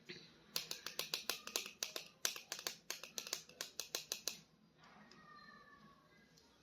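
Rapid sharp clicks and snaps from a plastic toy or its packaging being handled, several a second for about four seconds, then dying away.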